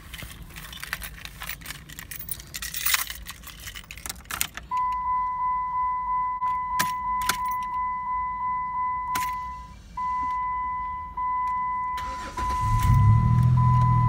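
Keys jangling in the ignition with a few clicks, then a Dodge Nitro's dashboard warning chime beeping about twice a second and then in longer tones. About twelve seconds in the 4.0-litre V6 cranks briefly, catches and keeps running, starting after a battery-disconnect hard reset.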